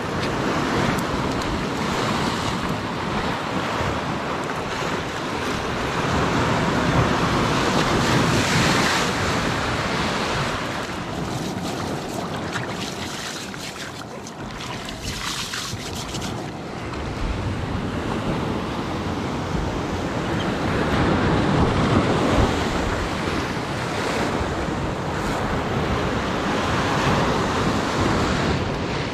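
Sea surf breaking and washing over a rocky shore, rising and falling in slow surges, with wind buffeting the microphone.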